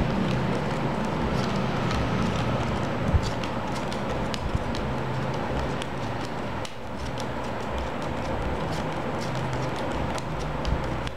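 Playing cards dealt one at a time from the hand onto four piles on a cloth-covered table: a run of light, irregular card snaps and ticks over a steady background hum.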